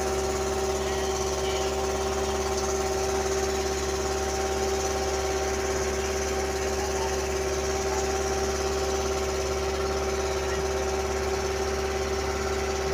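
A wooden boat's engine running steadily, one unchanging pitched hum with no change in speed.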